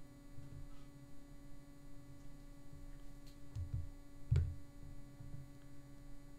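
Steady low electrical hum, with a few faint clicks and soft low thumps scattered through.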